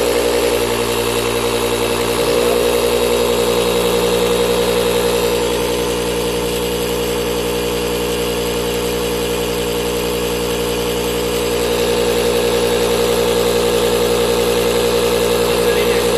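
Rechargeable cordless SUP air pump running steadily with a loud, even motor hum as it inflates a stand-up paddle board through its hose.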